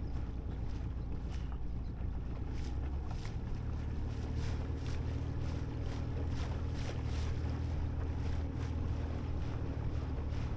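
Small fishing boat's engine running steadily under way, with wind on the microphone and the hull slapping the water in short, irregular knocks.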